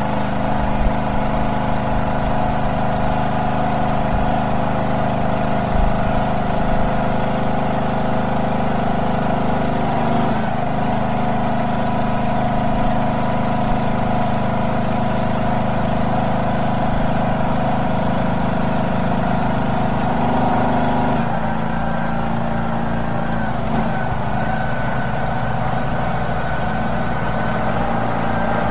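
An engine running steadily, its note changing slightly about twenty seconds in.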